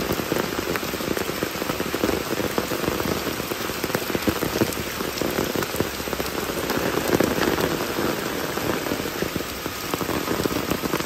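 Heavy rain pouring down on a dirt road and roadside plants: a dense, steady patter of countless drops.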